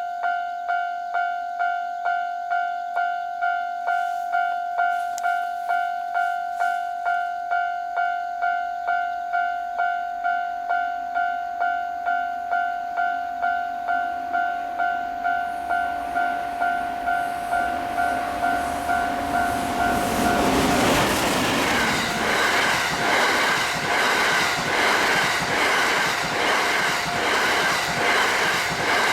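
Japanese level-crossing warning bell ringing steadily, about three strokes every two seconds. About twenty seconds in, the Cassiopeia sleeper express passes at high speed: a loud rushing with the rhythmic beat of its wheels over the rail joints, which covers the bell.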